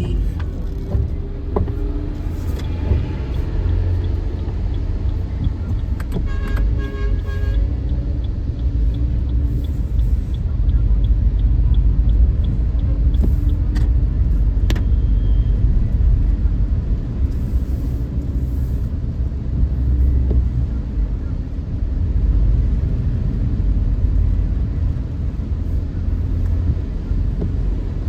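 Car driving, heard from inside the cabin: a steady low rumble of engine and road noise, with a brief run of light, evenly spaced ticks about a third of the way in.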